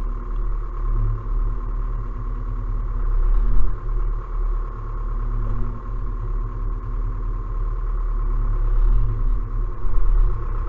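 Zetor Proxima tractor's diesel engine running steadily, heard from inside the cab: a low drone with a steady whine above it.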